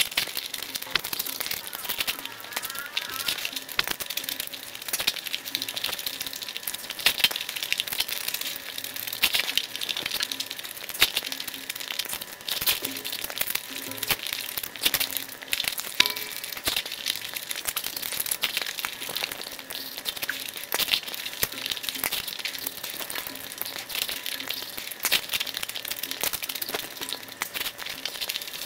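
Close-miked eating sounds: wet chewing, lip smacking and finger sucking as saucy chicken curry and paratha are eaten by hand, a continuous run of irregular small clicks and crackles.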